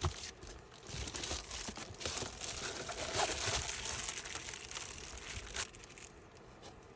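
Crinkly sheet material, such as foil-faced bubble insulation, being handled: a rustling, crinkling spell of about five seconds with small knocks mixed in, which dies away near the end.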